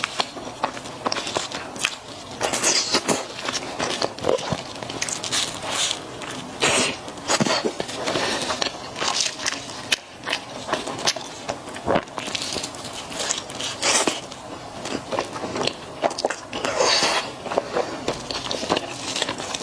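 Close-miked mouth sounds of biting and chewing squid-ink-crust durian pizza with cheese: irregular crisp clicks and smacking bursts, with no pauses longer than a moment.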